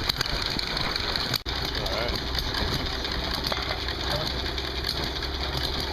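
Outdoor crowd ambience with distant voices and a steady high hiss, broken by a brief dropout about a second and a half in; after it a low engine hum runs underneath.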